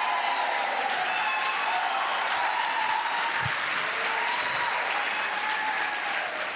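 Church congregation applauding, with a few voices calling out over the clapping. The applause dies down near the end.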